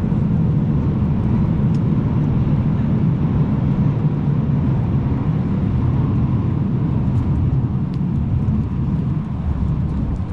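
Steady low rumble of motor vehicles and road noise. It holds at a constant level, with a few faint clicks.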